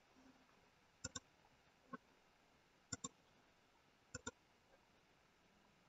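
Faint computer mouse button clicks: a quick double click about a second in, a single click near two seconds, then two more double clicks.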